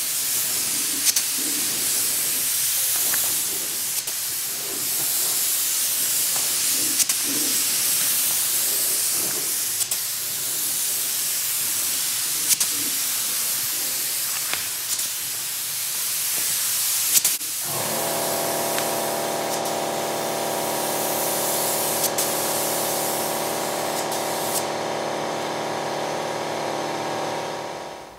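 Gravity-feed spray gun hissing steadily as it lays a coat of black paint. About two-thirds of the way through, a steady machine drone with several tones joins in, and the spray hiss fades out near the end.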